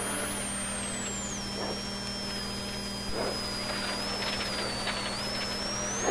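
Rally car driven hard on a special stage, heard from inside the cockpit: steady engine and drivetrain noise under a high whine. The whine drops in pitch about a second in, stays low, and rises again near the end as the car slows and then picks up speed.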